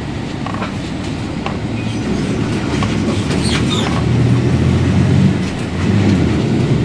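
Mercedes-Benz 1724L city bus (Caio Apache Vip IV body) running under way, its diesel engine and drivetrain growing louder over the first few seconds, dipping briefly, then rising again, with light rattles. The differential is roaring very loudly.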